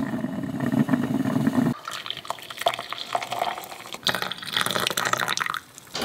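Coffee poured into a ceramic mug, liquid splashing and filling it, after a low steady hum in the first couple of seconds.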